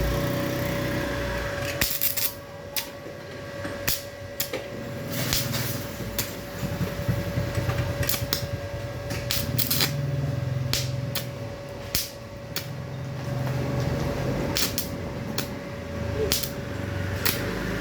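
Mini stick welder's arc crackling and popping irregularly as a practice bead is run, with a low buzz that comes and goes as the arc burns and a steady whine from the machine underneath.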